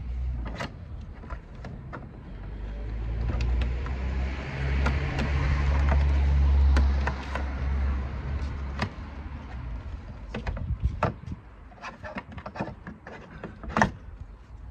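Sharp clicks and knocks of plastic engine-bay covers being unclipped and handled, with one loud knock near the end. In the first half a low rumble swells and fades over several seconds.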